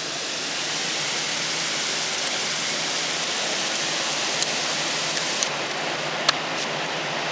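Torrential rain pouring down in a steady, dense hiss, with a few sharp ticks of drops striking something close by.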